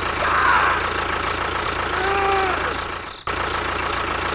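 A small motor running steadily, with a few short tones sliding in pitch over it. The sound breaks off abruptly for a moment about three seconds in, then resumes.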